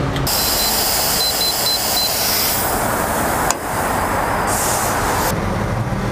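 Gas station air machine running with a loud, steady hiss, with a few short high electronic beeps in the first two seconds, as it is used to top up a leaking truck tyre.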